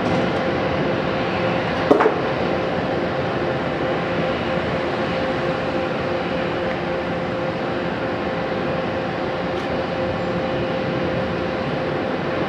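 Boeing 777-200LR's GE90 turbofans at taxi idle as the airliner rolls past: a steady jet whine with one held tone over a broad rush. A short sharp knock about two seconds in.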